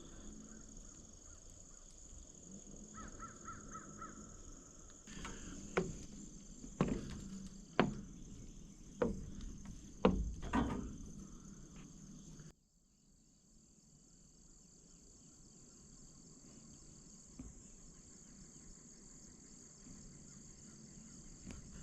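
A bird calling repeatedly outdoors, about six loud calls roughly a second apart, over a steady high-pitched insect drone; the background drops away suddenly about halfway through.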